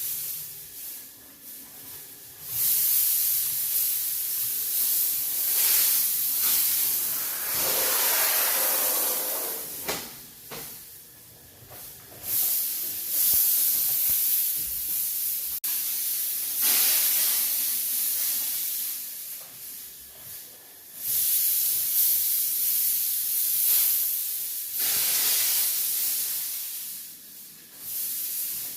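Disinfectant and deodorizer sprayer hissing in long bursts of several seconds each, with short pauses between them.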